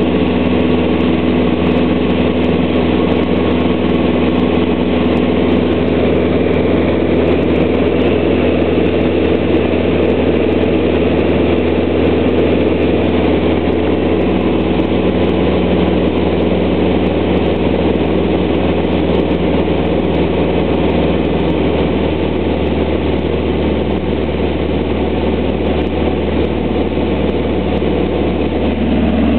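Light propeller aircraft's engine and propeller droning steadily, heard from inside the open cockpit, with a slight change in pitch about halfway through.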